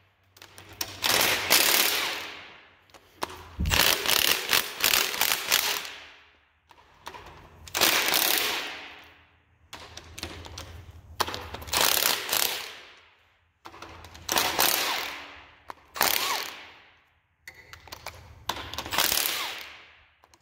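Ratchet wrench working in about nine bursts of rapid clicking, each starting sharply and dying away over a second or two, as bolts are turned out of a cylinder head.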